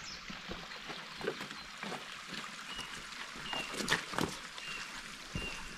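Footsteps on a forest trail, a few scattered steps over a soft outdoor background. From about the middle on come several short, high, even-pitched whistles.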